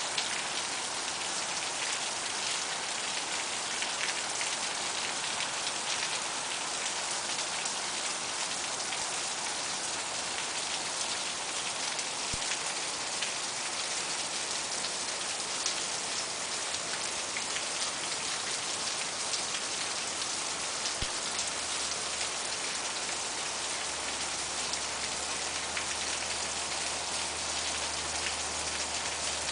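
Steady rain falling, a dense hiss full of fine drop patter. A faint low hum comes in about two-thirds of the way through.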